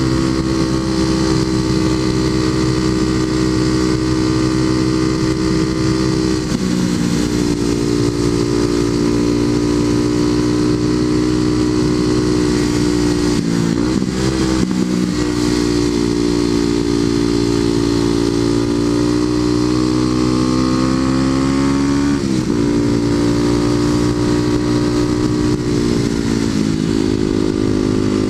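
Kawasaki KLX250SF's single-cylinder four-stroke engine through a Muzzy aftermarket exhaust, running under way at road speed on gravel. The engine note holds steady, dipping and recovering in pitch a few times as the throttle and gears change.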